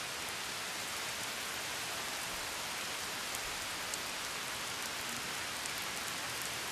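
Steady rain: an even hiss with a few faint drop ticks.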